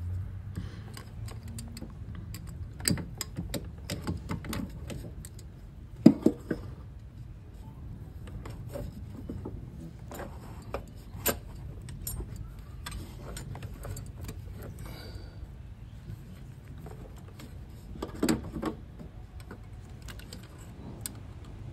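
Hand tools and pliers clinking and tapping against engine parts and hose fittings: irregular small metallic clicks, with a few louder knocks, the strongest about six seconds in.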